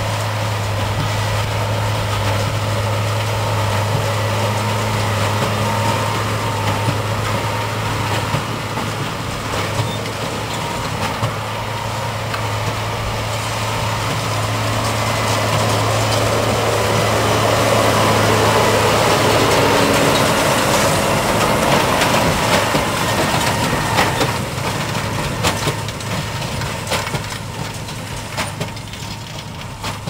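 A New Holland T7060 tractor's six-cylinder diesel runs steadily under load while pulling a New Holland D1210 big square baler, whose working parts add crunching and sharp knocks as it packs straw. The sound grows louder as the rig passes close in the middle and fades near the end as it moves away.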